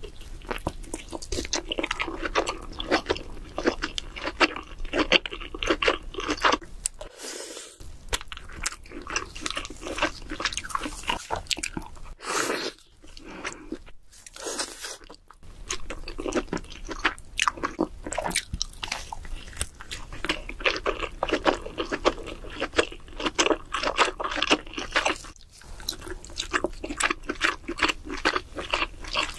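Close-miked chewing and biting of king crab meat: a dense run of wet clicks and smacks from the mouth, broken by a few brief pauses.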